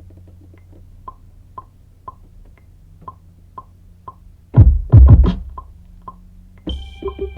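Electronic instrumental beat from a drum machine: a light click about twice a second, then a few heavy bass-drum hits about halfway through, and a held synth tone coming in near the end.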